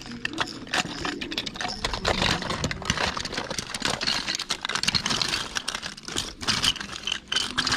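Hands rummaging through a pile of small hard plastic toys and accessories: a continuous, irregular clatter of plastic pieces knocking and rattling together.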